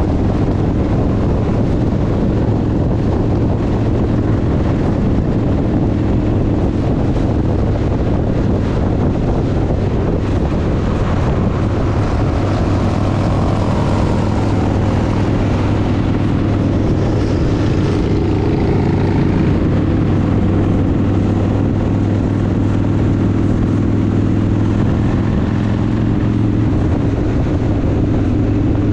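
Harley-Davidson V-twin engine running at a steady highway cruise, a constant low drone. Wind rushes over the microphone throughout.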